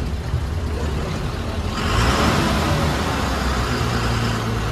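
Eicher bus's diesel engine idling with a steady low rumble. About two seconds in, a loud steady hiss starts suddenly and holds for about three seconds before cutting off.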